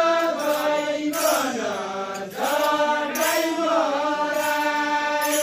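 Group of men singing a deuda folk song together in long, drawn-out chant-like phrases; one phrase ends and the next begins about two seconds in.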